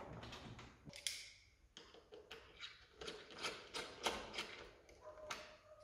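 A string of light, irregular clicks and taps, about two or three a second, as motorcycle fairing parts and their fasteners are handled and fitted. A short squeak comes near the end.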